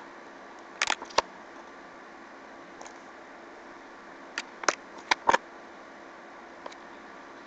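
Pages of a paperback art book being turned by hand: short, sharp paper flicks and taps in two clusters, a few about a second in and more around four to five seconds in, over a steady faint hiss.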